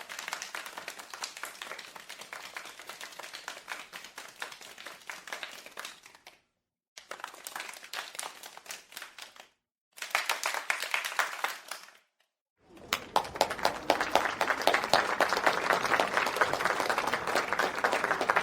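Applause: many hands clapping in a dense patter, in four separate takes cut apart by short silences, the last take the loudest.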